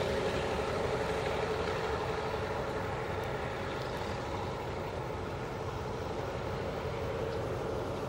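Diesel locomotive engine running steadily, heard at a distance.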